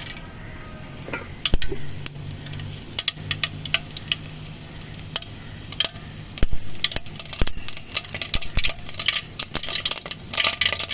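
Mustard seeds spluttering in hot oil in a kadai: scattered sharp pops that come thicker about seven seconds in, with a louder sizzle near the end.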